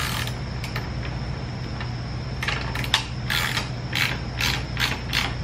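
Ratchet wrench clicking as the rear axle nut of an electric scooter is tightened: a run of sharp clicks, about three a second, starting about halfway through, over a steady low hum.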